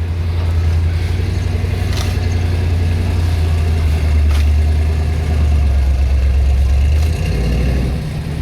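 Plow truck's engine running steadily with a deep low rumble while it pushes snow, easing off briefly near the end. Three faint sharp ticks are heard over it.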